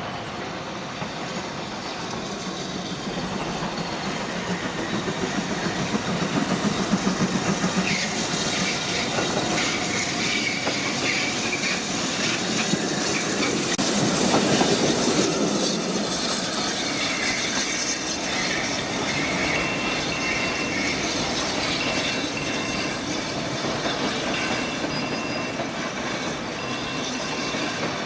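Railway train passing close by, its wheels clattering over the rail joints with thin intermittent squeals from the wheels. It grows louder to a peak about halfway through and keeps running steadily after.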